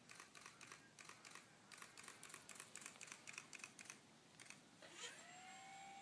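A rapid, irregular run of light clicks over the first four seconds. About five seconds in, the electric motor of a radio-controlled model aircraft spools up: a rising whine that levels off into a steady tone.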